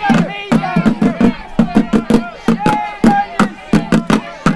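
Street protest drums beaten in a fast, uneven rhythm, about five strikes a second, with a crowd's voices shouting and chanting over them.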